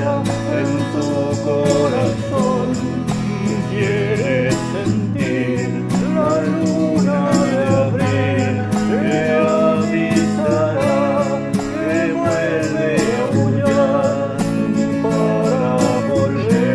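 Music: a song with a steady beat and a sliding lead melody over sustained low notes.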